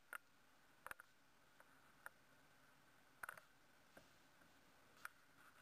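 Near silence with faint, sharp clicks at irregular intervals, about nine of them.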